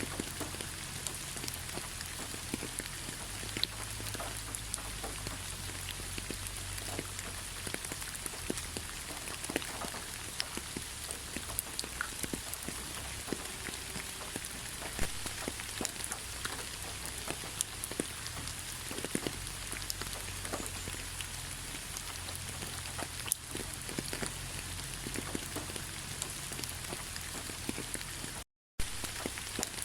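Steady rain falling, with many distinct drops tapping sharply close by. Near the end the sound cuts out completely for a split second.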